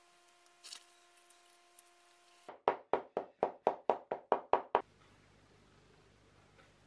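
A quick run of about ten hammer taps, roughly five a second, from the hammer head of lasting pincers knocking the leather upper down onto the insole of a shoe on its last. Before the taps there is a faint steady tone and a few light clicks.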